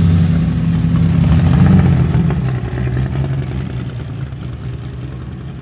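Chevrolet Caravan's 4.1-litre six-cylinder engine running as the wagon drives off. The revs rise slightly about a second and a half in, then the sound fades as the car moves away.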